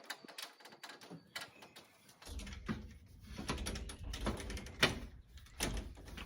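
Flexible window screen frame being squeezed and pushed into a storm door's window track: a run of irregular clicks, taps and scraping, with the sharpest knock about five seconds in.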